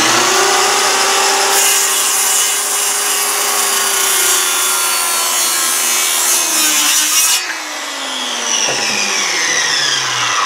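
Milwaukee 15-amp corded circular saw running at full speed and cutting through a 4x4 for about six seconds. Near the end of the cut the motor pitch sags as the blade binds going through a knot. The cut then ends and the saw winds down with a falling whine.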